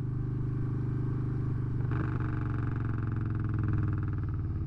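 Motorcycle engine running steadily at low road speed, its pitch nearly level throughout.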